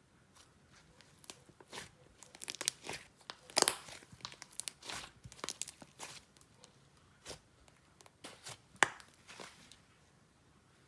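Soft slime being squished and stretched by hand, giving irregular sticky clicks and crackling pops, loudest about three and a half seconds in and again near nine seconds.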